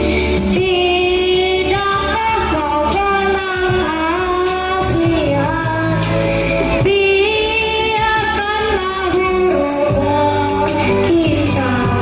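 Young girls singing a song together over backing music with a steady bass line, played through a stage PA.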